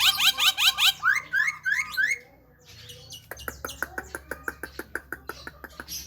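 Javan myna calling: a fast run of short rising chirps that slows over its last second. After a brief pause comes a rapid series of dry clicking notes, about seven a second.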